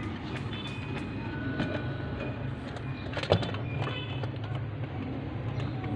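Plastic Buzz Lightyear action figure being handled among the shelves of a toy display cabinet: light scattered clicks and knocks, with one sharper knock about three seconds in, over a steady low hum.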